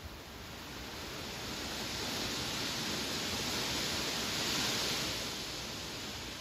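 Wind blowing through grass, swelling into a gust that is loudest about four to five seconds in, then easing off.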